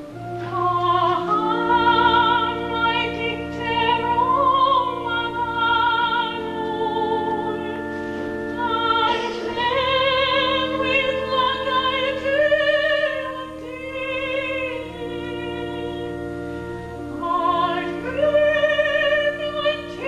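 A woman singing a classical solo with a wide vibrato over sustained accompanying chords.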